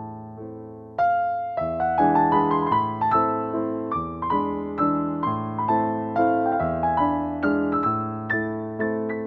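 Background piano music: single notes and chords struck one after another, each fading away before the next.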